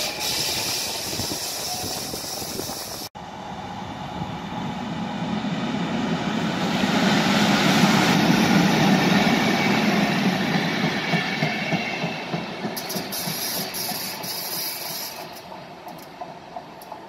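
An electric multiple unit is running at the platform for about three seconds, then breaks off abruptly. A PKP Intercity SM42 diesel shunting locomotive follows, passing close by, its engine loudest about eight seconds in. Passenger coaches then roll away, clicking over the rail joints as the sound fades.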